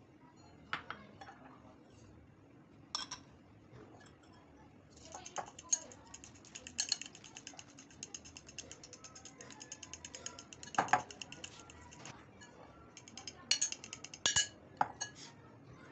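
A utensil beating egg and yeast in a glass bowl: a quick, even run of light clicks against the glass through the middle, with a few separate sharp clinks of glass before and after.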